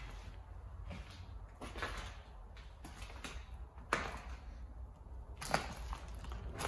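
Footsteps and scuffs on a floor strewn with plaster and wood debris in an abandoned house, with two sharp knocks, one about four seconds in and another a second and a half later.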